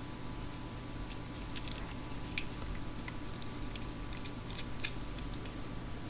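Steady hum and hiss from an open video-call audio line, with scattered faint, irregular clicks. The presenter's microphone is not coming through.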